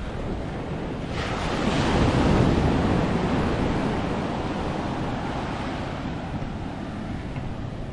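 Sea surf: a wave breaks about a second in and its wash slowly fades, over wind noise on the microphone.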